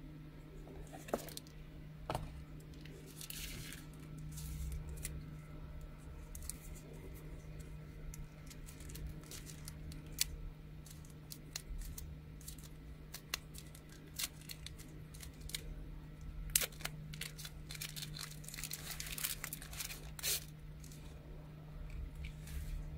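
Packaging being unwrapped by hand: a paperboard box and a soft grey protective wrap rustle and crinkle in repeated short bursts, with small taps and clicks of handling. A steady low hum runs underneath.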